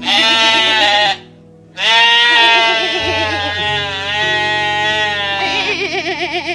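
Bleating farm animal calling twice, a short call then a long wavering one, over steady background music.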